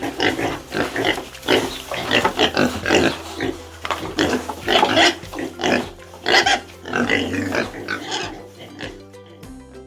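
Pig grunting and oinking in a quick, irregular series of short grunts, with background music underneath.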